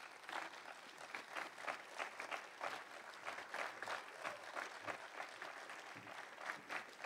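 Faint audience applause, many hands clapping.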